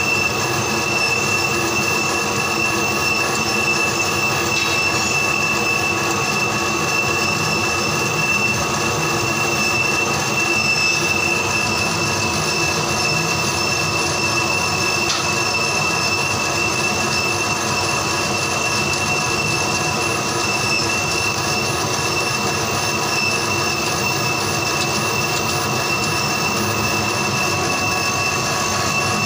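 Laser engraving machine raster-engraving a picture into an MDF sheet, its head sweeping rapidly back and forth. A steady mechanical running noise with a high, unbroken whine.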